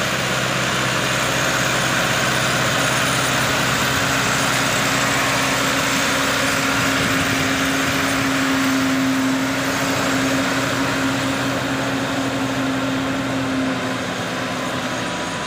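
A 105-horsepower rubber-tracked tractor's diesel engine running steadily under load as it pulls a rotary tiller through wet, muddy paddy. The engine hum grows stronger partway through and eases off near the end.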